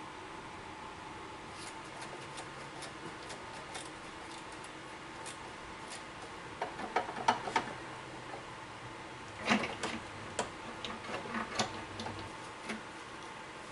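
Hand tools working on a car: scattered light clicks and metallic clinks, with clusters of sharper knocks about seven seconds in and again around ten seconds, over a steady faint background hum.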